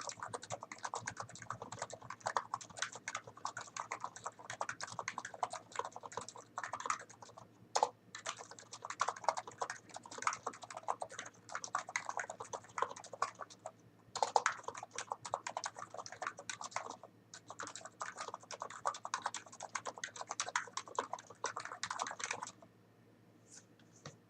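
Typing on a NIZ Plum Nano 75 keyboard with 45 g electro-capacitive switches and PBT keycaps: a fast, continuous run of keystrokes with a few brief pauses, stopping a couple of seconds before the end.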